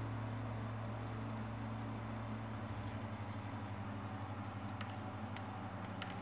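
Steady low hum that starts to pulse a little after two seconds in. In the second half, a few sharp clicks as side cutters snip plastic model parts from the sprue.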